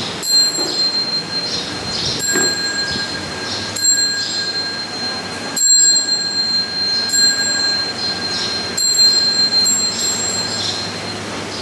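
Metallic bell-like chimes struck about every one and a half to two seconds, each ringing on in several high, steady tones, with birds chirping in the background.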